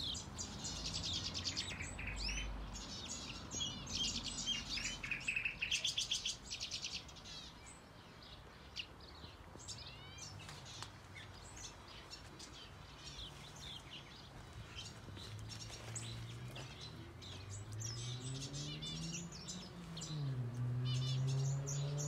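Small aviary birds (finches and softbills) chirping and calling. The chirps come thick in the first several seconds and then thin out. Over the last several seconds a low, steady hum rises in pitch, dips and then holds.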